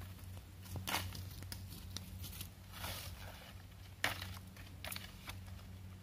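Dry fallen leaves and undergrowth crunching and rustling under footsteps and hands picking leaves, with sharp crackles about one, three and four seconds in, the last the loudest. A faint steady low hum is also there.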